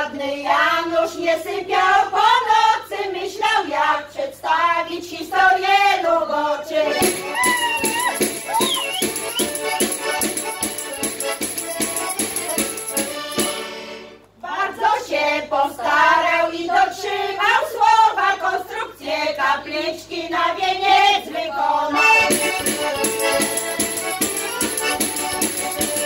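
A women's folk group sings a verse of Polish harvest-festival couplets with instrumental backing, breaks for a short instrumental interlude with a steady beat, then sings a second verse, and the interlude starts again near the end.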